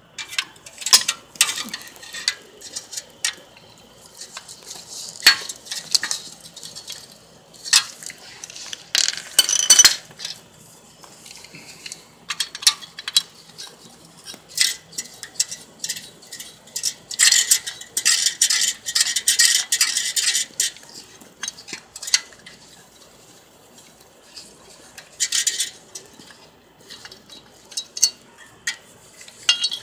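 Metal hand tools, a socket wrench and extension, clinking and scraping against engine parts in irregular bursts of sharp clicks and rattles, with one longer rattle lasting a few seconds past the middle.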